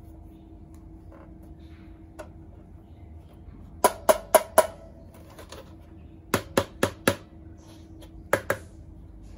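Quick sharp taps on the plastic housing of a Beurer mechanical bathroom scale, in three groups: four about four seconds in, four more about two seconds later, then two near the end.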